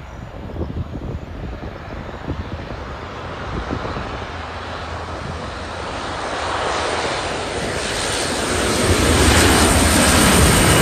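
Fixed-wing aircraft engine noise building steadily louder as the plane approaches, loudest in the last two seconds, with wind rumbling on the microphone early on.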